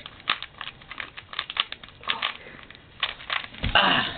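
Plastic Rubik's Cube layers being twisted by hand: a quick, irregular run of clicks and clacks as the faces turn, with a louder bump and rustle near the end.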